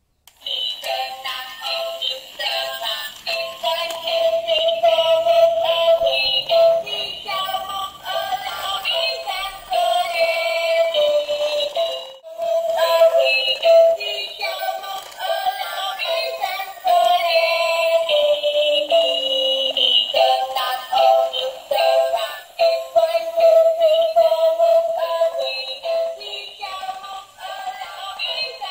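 Battery-operated toy clownfish playing an electronic melody through its small built-in speaker, thin and without bass, with a short break about twelve seconds in.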